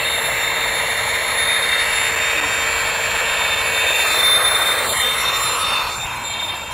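Pocket-size electric camping air pump running steadily with a high whine, blowing air into a sleeping pad whose valve is not fully open. It drops a little in level near the end.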